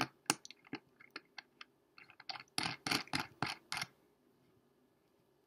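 Light, irregular clicks and metallic ticks of a Mutation X V2 rebuildable dripping atomizer being screwed onto a Snow Wolf 200 box mod's threaded connector. The clicks come thickest near the middle and stop about four seconds in.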